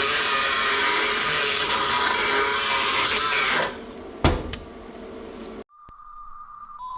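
Compressed-air blow gun hissing steadily with a thin high whistle for about three and a half seconds, cooling a freshly welded hot aluminum part, then stopping. A single knock follows about a second later.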